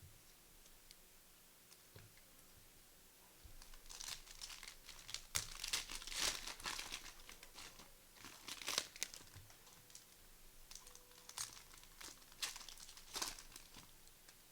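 Plastic wrapper of a pack of basketball trading cards being torn open and crumpled, in a run of crackly crinkling bursts that start about four seconds in and are loudest in the middle.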